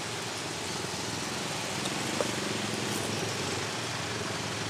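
A small engine running steadily, with one light click about two seconds in.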